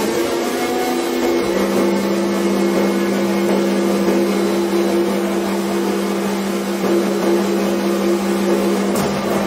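Rotary friction welding machine running with its workpiece spinning: a steady, loud hum of several tones from the spindle drive over a noisy whir.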